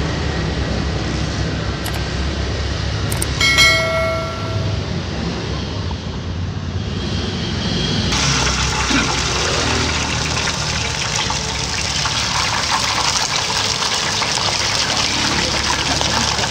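Low road rumble with a short beep about three seconds in. About halfway through, a steady hiss of potatoes deep-frying in hot oil starts sharply and carries on.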